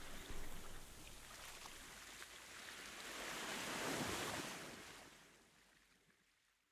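Surf washing on a beach with wind noise on the microphone, swelling once about three to four seconds in and then fading away.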